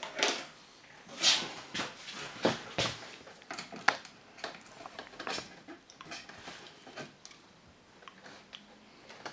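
Irregular clicks, knocks and rustles from hands working at a curtain track, handling the runners, cord and curtain. The sounds are loudest in the first few seconds and thin out to faint rustles near the end.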